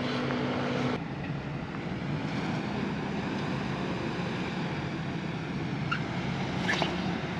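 Nissan Xterra's engine running at low, steady revs as it crawls over rocks, with a couple of light knocks near the end.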